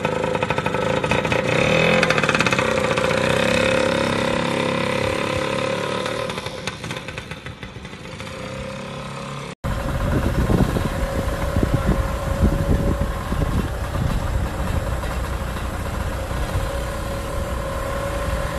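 Classic motor scooter's engine running and revving as it pulls away, then fading. After a sudden cut about halfway through, a steady engine drone with heavy low wind rumble.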